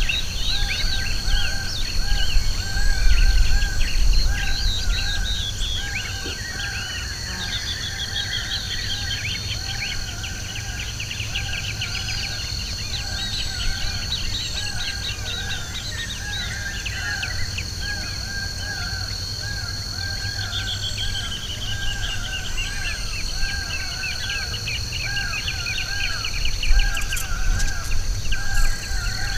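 A chorus of several birds singing and calling at once: rapid trills, quick chirps and one call repeated over and over, over a steady high-pitched hum.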